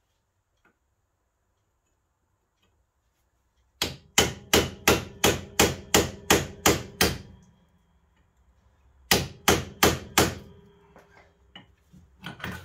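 Hammer blows on a seized Vauxhall Corsa C front hub, driving the driveshaft out of it: a fast run of about a dozen strikes, a pause, then four more, with a faint metallic ring after them and lighter knocks near the end.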